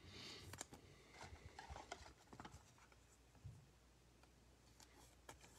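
Near silence with faint rustling and small clicks of trading cards, among them a clear acetate card, being handled in the fingers; the rustle is strongest in the first half second.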